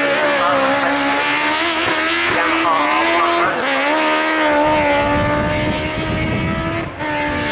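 Motorcycle-engined Mini Cooper's engine revving hard and held at high revs with a high, steady note as it accelerates up a hillclimb, the note breaking and dropping briefly a few times as it changes gear.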